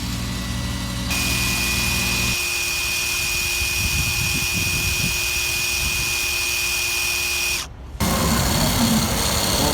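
Battery torque wrench running: its electric motor and gearing give a low steady hum that gives way to a high, steady whine. The sound cuts off abruptly about eight seconds in, and another stretch of tool noise starts straight after.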